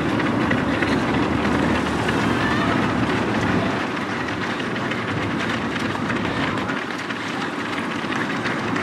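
Footfalls of a large pack of runners on a road: a dense, overlapping patter of running shoes on tarmac as the pack passes close by, easing a little after about four seconds.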